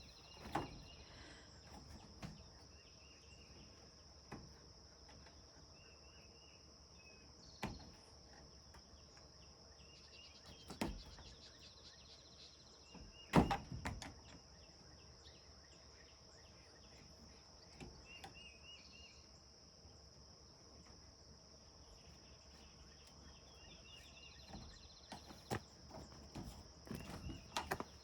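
Quiet outdoor ambience: a steady high insect drone with a few short bird chirps, broken by a handful of scattered knocks and clicks, the loudest about halfway through.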